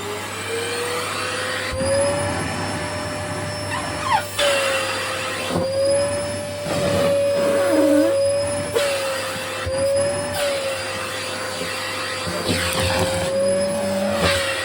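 Vacuum cleaner running while sucking in a camisole. Its motor tone rises in pitch over the first two seconds and then wavers up and down as the airflow is choked. Bursts of rustling come several times as the fabric is drawn against the nozzle.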